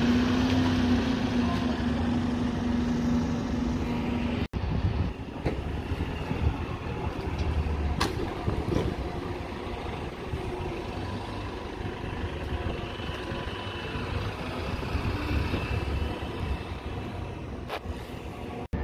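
Buses running at a bus station, a steady engine rumble with a held engine tone for the first few seconds. The sound cuts off sharply about four and a half seconds in and resumes as a changing engine rumble.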